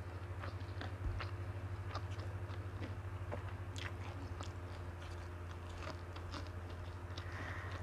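Close-miked chewing of a mouthful of rice and cassava-leaf rendang: irregular soft mouth clicks and smacks over a steady low hum.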